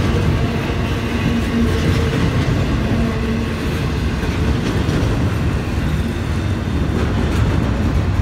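Freight train of double-stacked container cars rolling past on the tracks: a steady, loud noise of wheels on rail.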